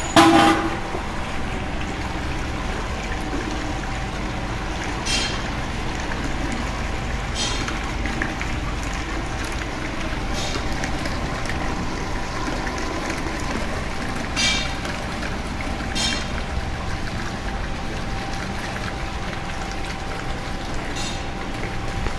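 Electric stirrer of a 200-litre mild steel mixing tank running steadily, its motor humming over a low rumble while the liquid swirls in a deep vortex. There is a louder knock just after the start, and several short sharp clicks are scattered through.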